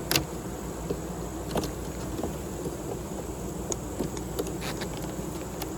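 Honeybees buzzing in a steady hum around an opened hive, with scattered sharp clicks and knocks, a few seconds apart, as the hive is worked.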